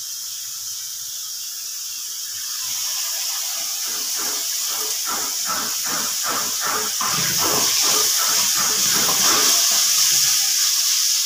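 Chopped onion, tomato and herbs sizzling in oil in an aluminium kadai, with a spoon scraping and stirring through the pan about two or three strokes a second from about four seconds in. The sizzle grows louder as the mixture is stirred.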